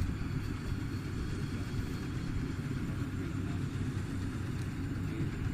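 Rice combine harvester's engine running steadily, a constant low rumble.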